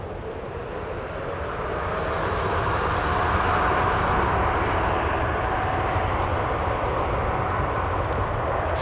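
Jet engines of a Boeing 747-8F freighter (four GEnx-2B turbofans) passing. The roar grows louder over the first three seconds and then holds, with a steady whine running through it that rises slightly before levelling off.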